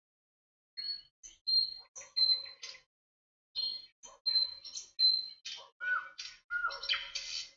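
Birds chirping and whistling: short high notes in quick phrases, starting abruptly about a second in and growing busier near the end.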